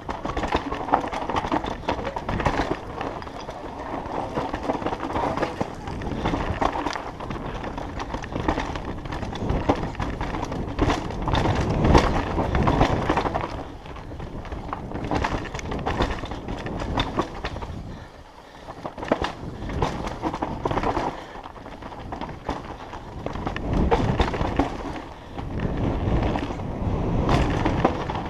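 A Scott Gambler downhill mountain bike ridden fast down a rough dirt trail, heard from a helmet-mounted camera: a continuous rush of tyre and wind noise that swells and eases with speed, broken by many sharp knocks and clatters as the bike hits roots and rocks.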